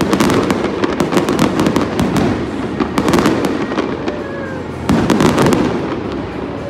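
Aerial fireworks bursting in quick volleys, a dense crackle of sharp reports over a low rumble, with the heaviest salvos at the start, about three seconds in, and about five seconds in.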